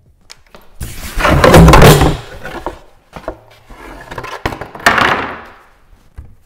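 A wooden board handled on a wooden workbench: a long, loud scraping knock about a second in, then the board slammed down flat about five seconds in.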